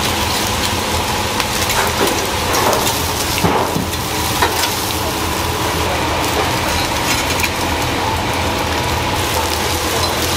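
Skewered freshwater eel sizzling over a bamboo charcoal fire: a steady hiss with scattered crackles and pops from the coals.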